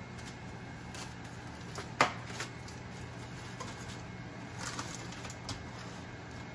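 Foil-lined metal pizza tray set onto an oven rack: one sharp clank about two seconds in, then a few lighter taps and scrapes as it is pushed into place, over a steady low hum.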